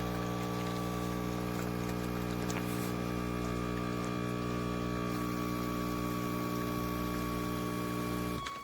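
KOTLIE 19-bar multi-capsule espresso machine's pump running with a steady buzzing hum while it brews a pod, cutting off suddenly near the end as the brew finishes.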